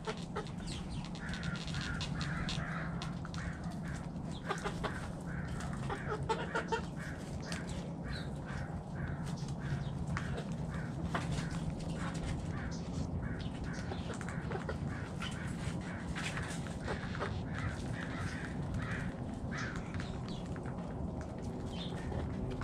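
A flock of backyard hens clucking in their coop: many short, repeated calls with scattered sharp clicks, over a steady low hum.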